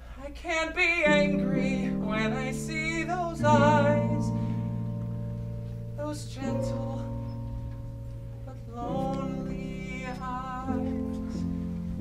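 Song with a singer holding notes with vibrato over sustained accompaniment chords, in two sung phrases, the second starting about nine seconds in.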